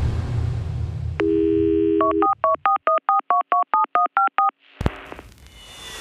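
A telephone dial tone, then about a dozen quick touch-tone keypad beeps, used as an intro sound effect. Before the tone a deep rumble fades away, and after the beeps comes a sharp click and a rising whoosh.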